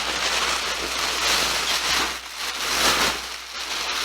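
A plastic bag rustling and crinkling as it is handled and opened, in uneven swells.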